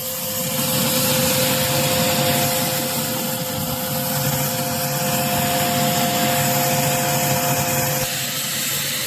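A motor-driven cleaning machine running: a loud rushing hiss over a steady two-note motor whine, blasting dust out of an AC outdoor unit. The hiss eases about eight seconds in while the whine carries on.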